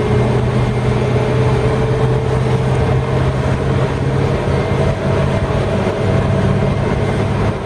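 Holden 253 (4.2-litre) V8 engine running steadily while the car is driven, a low drone with a faint whine that rises slightly in pitch.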